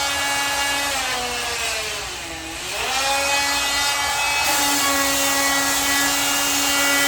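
Craftsman CMEW400 oscillating multi-tool with an 80-grit sanding pad running, a steady buzz. Its pitch sinks from about a second in and climbs back near three seconds, then steps up a little around four and a half seconds.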